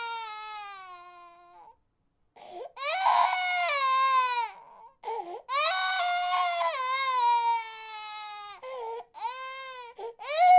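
Baby crying: a run of high, drawn-out wails that each slide down in pitch, broken by short catches of breath. The first wail fades out, then after a brief pause the crying starts again in longer and shorter cries.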